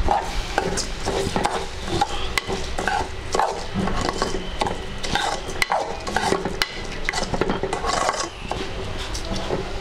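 A steel spoon stirring and scraping raw basmati rice as it is roasted in a little ghee in a metal pan. It makes a run of irregular scraping strokes, with sharp clinks of metal on the pan.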